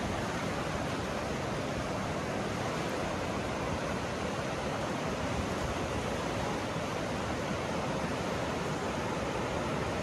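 The Ganges, a Himalayan mountain river, flowing fast over a shallow stony bed: a steady, even rush of water.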